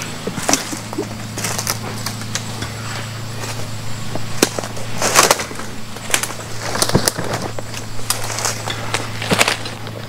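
Footsteps crunching through dry leaves and fallen palm fronds, irregular crackles and scrapes, over a steady low hum.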